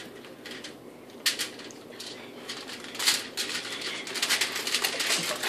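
Crinkling and crackling of the wrap around a large burrito as it is folded and pressed by hand, with two sharper crackles, about a second in and about three seconds in, and denser crinkling near the end.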